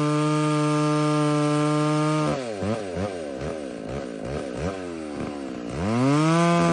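McCulloch Pro Mac 605 two-stroke chainsaw engine held at high revs, then let off about two seconds in and blipped up and down several times at lower revs before going back to a steady high-rev scream near the end.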